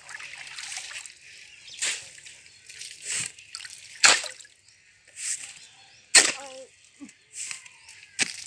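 Water splashing in a run of separate splashes, roughly one a second.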